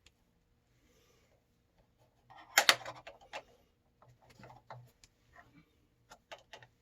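Handling noise at an electric water heater's thermostat access opening: a sharp clatter about two and a half seconds in, then scattered clicks and light knocks.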